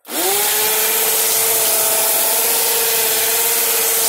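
Handheld stick blender motor starting, whining quickly up to speed and then running at a steady high pitch as it grinds dry laundry soap powder (soap flakes, borax and washing soda) in a metal bucket. A dense hiss of churning powder runs under the motor whine.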